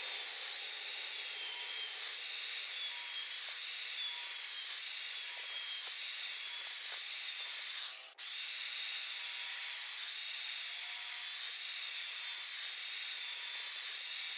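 Compact router with a roundover bit running at full speed and cutting a roundover along a plywood edge. Its high whine sags and recovers about once a second as the bit takes load, with a brief break about eight seconds in.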